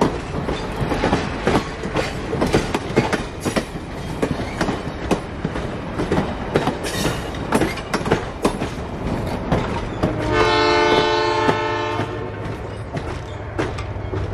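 Train wheels clicking over rail joints throughout. About ten seconds in, the horn of Lima LS-750 switcher No. 25 sounds one chord blast of about two seconds.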